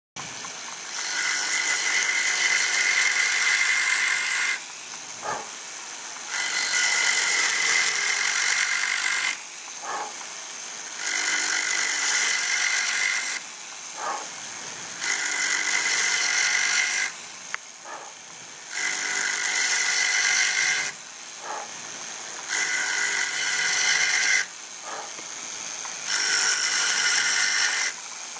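Titan power checkering tool, its flexible-shaft-driven cutter running and cutting checkering lines into a black walnut gunstock. There are about seven loud cutting passes of two to three seconds each. Between them the tool runs more quietly with a short click.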